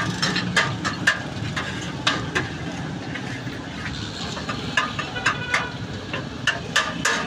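Steel ladle and plates clinking and knocking against a large steel pot of chickpea curry, in a string of sharp clinks, some of them ringing briefly, over a steady hum of street traffic.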